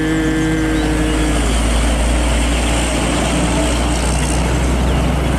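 Heavy trucks, among them a Hino 500, driving past on a road: steady low engine rumble and tyre and road noise. A long pitched tone with overtones holds steady over it and stops about a second and a half in.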